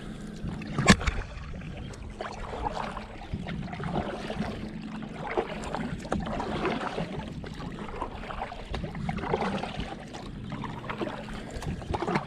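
A kayak moving through water, with rhythmic swishes of water about once a second as it is driven along. There is one sharp knock about a second in.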